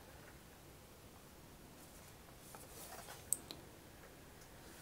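Mostly quiet, with faint rustles and a light sharp click just over three seconds in, from a shrink-wrapped TDK D60 plastic cassette being turned over in the fingers.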